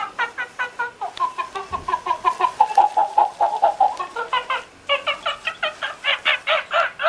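Rapid, repeated chattering calls from a plush monkey toy's built-in sound unit, about four to five a second, set off as a puppy bites and shakes the toy; in the middle the calls run closer together and lower in pitch.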